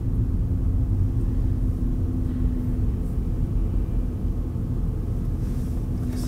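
Low rumble of a car's engine and tyres heard inside the cabin at low speed in slow city traffic, with a steady hum that fades about halfway through.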